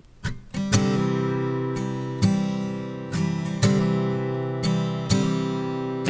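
Background music: strummed acoustic guitar chords, starting about a quarter second in and struck again every second or so.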